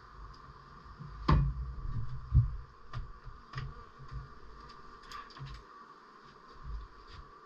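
Knocks and bumps on a wooden beehive as frames are worked in it: two heavy thuds about a second and two seconds in, then a string of lighter taps and clunks.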